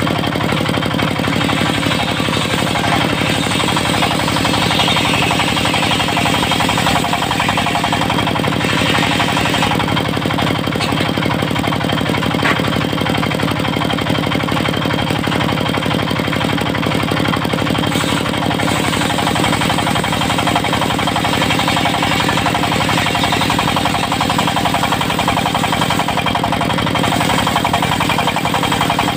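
Diesel engine of a mobile circular sawmill running steadily under a constant load, with a harsher, higher band of saw noise that is stronger in the first third.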